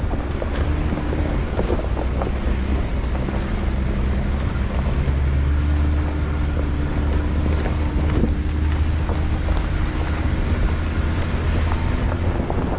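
A Jeep's engine running low and steady as it crawls slowly over a rocky dirt trail, with small stones crunching and clicking under the tyres. Wind buffets the microphone, which is mounted low beside the front wheel.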